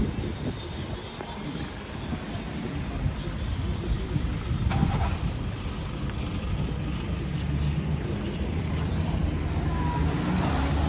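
Street traffic with a pickup truck's engine running close by, a low steady hum that grows a little louder near the end.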